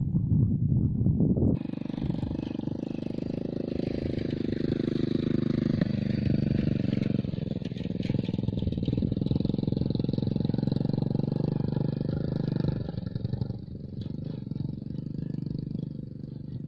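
A small engine running steadily, starting about a second and a half in and getting quieter about three seconds before the end.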